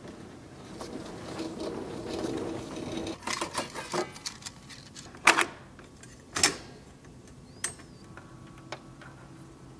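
Mechanical handling of a film reel and projector equipment: a low whirr, then a run of clattering clicks, with two sharp clicks about a second apart midway and a few fainter clicks afterwards.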